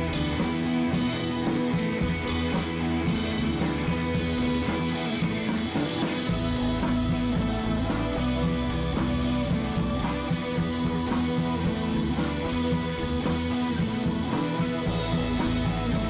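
Instrumental background music led by guitar, with drums; the low end fills out about six seconds in.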